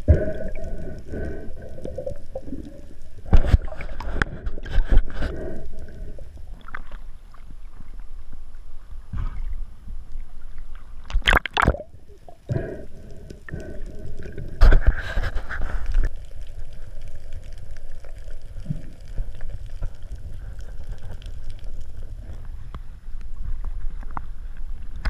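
Underwater sound picked up through an action-camera housing: a steady low rumble of moving water with scattered knocks and thuds, the loudest clusters about three to five seconds in, around eleven seconds and around fifteen seconds.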